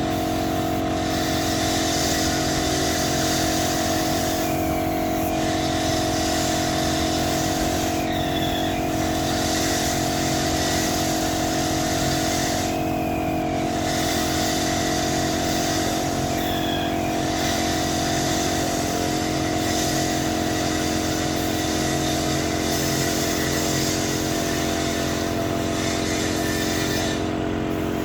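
A motor running with a steady hum, and a hiss above it that breaks off briefly several times.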